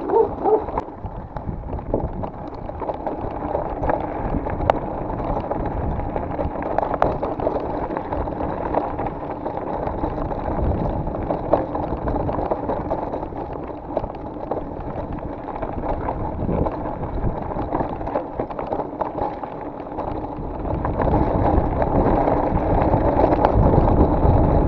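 Mountain-bike tyres rolling fast over a loose gravel track on a downhill coast, with steady crunching and many small clicks and rattles from the bike. The noise grows louder near the end.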